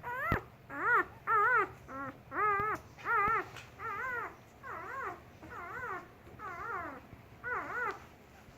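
Four-day-old German shepherd puppies whimpering: a steady run of short cries, each rising then falling in pitch, about two a second, growing softer about halfway through.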